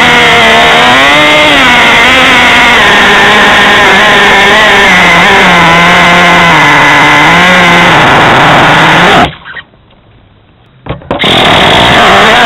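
Traxxas T-Maxx 2.5 nitro RC truck's small two-stroke glow engine running loud and high-revving, heard from a camera mounted on the truck, its pitch swinging up and down with the throttle. About nine seconds in, the sound cuts out abruptly for about two seconds, then returns.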